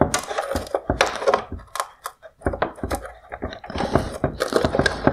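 Hard plastic clicking, creaking and scraping as a high beam reflector unit is wiggled and pulled free of an LED headlight housing, with many sharp clicks and rubbing in between.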